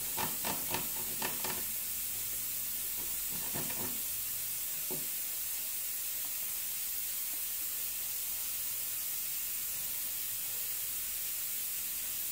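Garlic clove grated on a stainless steel box grater: a few short scrapes and taps in the first few seconds, then only a steady hiss.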